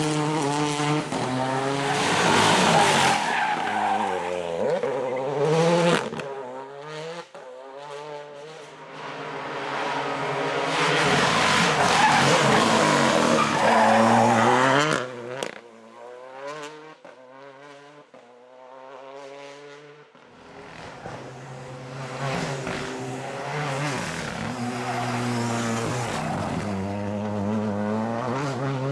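Renault Clio R3T rally car's turbocharged 1.6-litre four-cylinder engine revving hard through the bends. Its pitch rises and falls with each gear change and lift, across several passes that cut in and out abruptly.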